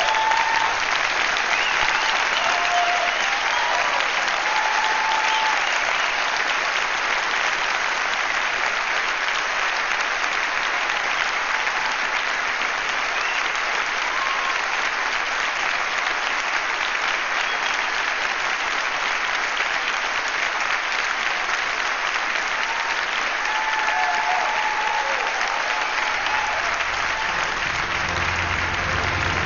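A large audience applauding steadily and continuously, a dense even clapping. Low-pitched music comes in under the applause near the end.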